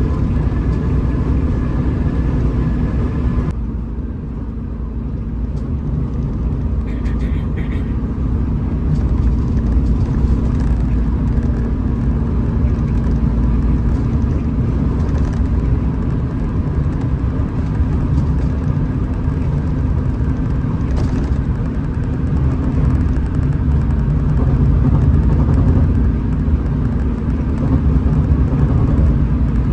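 Hino RM 280 bus running steadily at cruising speed: a continuous low engine drone and road rumble with a steady hum. The higher hiss drops away suddenly about three and a half seconds in.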